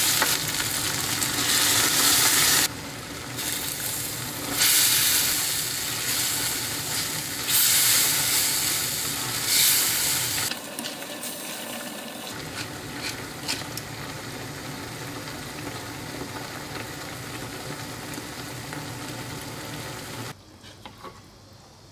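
Shrimp and mushrooms in cream sauce sizzling in a frying pan while being stirred, with several louder surges of sizzling. From about halfway it settles into a quieter, steady bubbling simmer with small clicks as spaghetti is tossed through the sauce.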